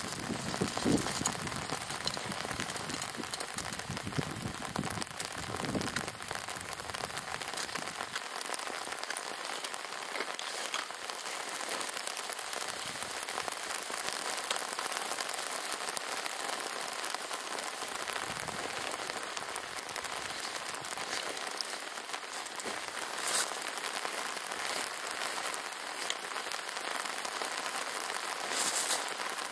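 Steady rain falling, an even hiss with a little low rumble in the first eight seconds and a couple of brief sharp ticks near the end.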